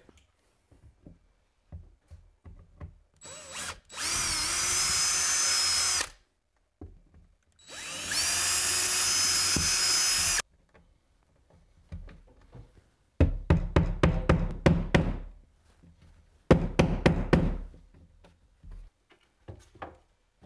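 Cordless drill drilling pilot holes in the wall, in two runs of about three seconds each, the motor whine rising as it spins up. These are followed by two bursts of rapid knocking.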